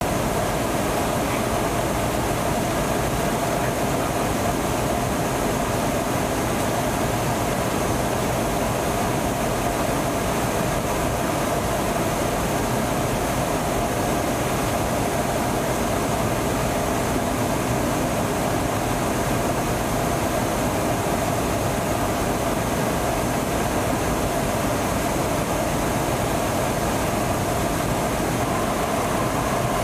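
Steady in-flight drone of engines and rushing air heard inside a KC-135 Stratotanker during aerial refueling, unchanging throughout, with a constant hum running through it.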